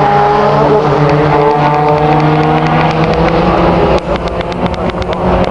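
Drag-racing car's engine at full throttle as it runs down the strip, a loud, steady engine note with small shifts in pitch. It falls away sharply about four seconds in, after which a run of short clicks is heard.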